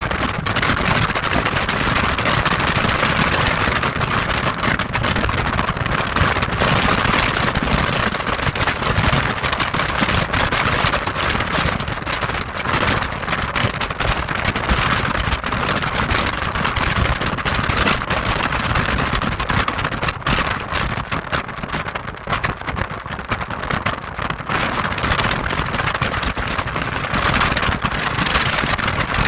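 Wind blowing: a continuous rushing noise that swells and eases slightly without ever stopping.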